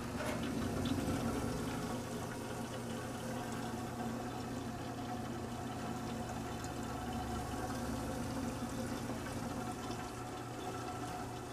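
Refrigerant boiling in the evaporator of a 1947 Kelvinator refrigerator, over the steady hum of its running compressor: a positive sign that the system is charged and cooling.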